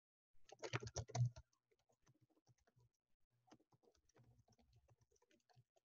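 Typing on a computer keyboard: a quick run of keystrokes about half a second in, then fainter, scattered keystrokes.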